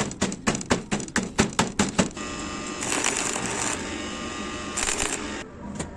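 A quick series of sharp taps or clicks, about five a second, lasting about two seconds, followed by a steady hissing noise with two louder bursts.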